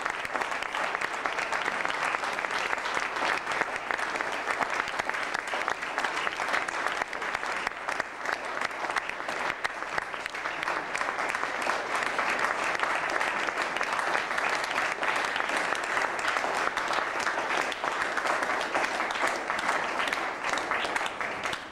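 Audience applauding: long, steady clapping from many hands.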